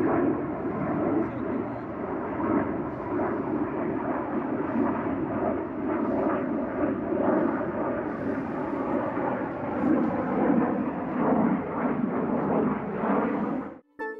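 Military jet fighter flying over with its afterburner lit: a loud, steady roar that cuts off abruptly near the end.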